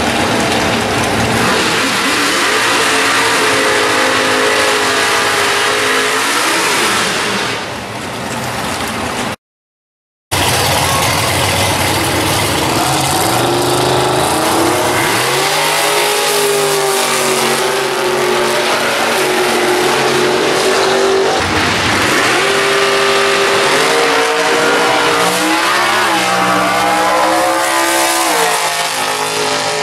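Drag cars' V8 engines at full throttle, revving at the starting line and launching down the strip. The engine note climbs and drops again and again as the cars pull away. The audio cuts out for about a second roughly nine seconds in.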